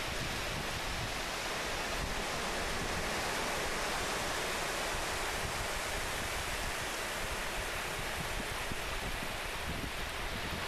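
North Sea surf washing on a sandy beach: a steady, even rushing hiss.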